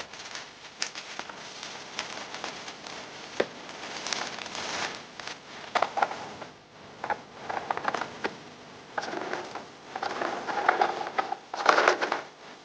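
Toy packaging being handled and opened, with irregular crinkling, rustling and sharp clicks. It is loudest in a busy stretch near the end.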